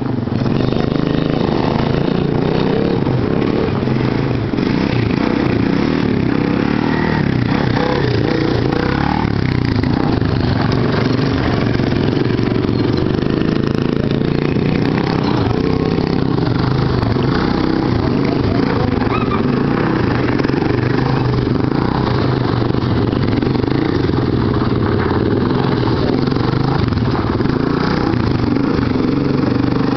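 Sport ATV (four-wheeler) engine running close by: a loud, steady engine drone whose pitch stays nearly even.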